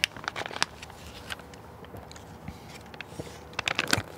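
A man drinking apple juice squeezed from a small plastic pouch, close to the microphone: a scatter of short wet mouth clicks and swallows, with a cluster of louder ones near the end.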